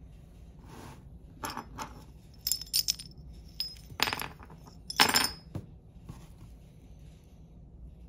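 Small sheet-metal jumper-cable clamp pieces clinking and jingling together as they are picked up and handled, in several short clusters of light metallic clicks, the loudest about five seconds in.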